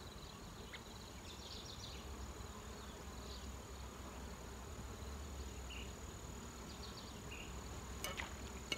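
Outdoor ambience: a steady high-pitched insect buzz with a few short chirps scattered through it, over a low rumble. Two sharp clicks near the end.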